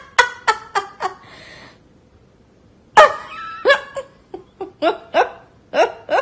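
A person laughing in a run of short bursts, with the loudest burst about three seconds in.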